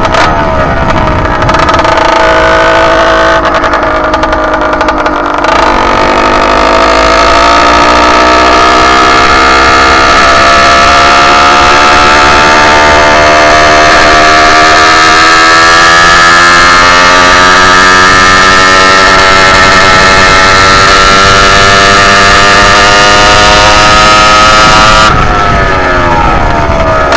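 Two-stroke engine of a motorized bicycle under way. Its revs fall for the first few seconds, then climb steadily for nearly twenty seconds, and drop away near the end as it comes off the throttle. The engine is jetted rich for break-in, which the rider says makes it sound choppy, breaking up at the high end on the main jet.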